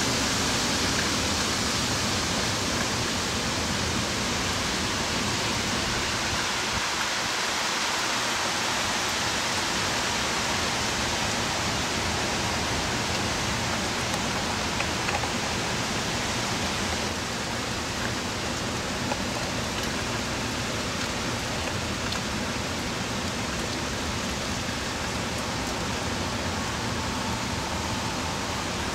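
Heavy hurricane rain pouring down in a steady, even rush, a little softer after about seventeen seconds.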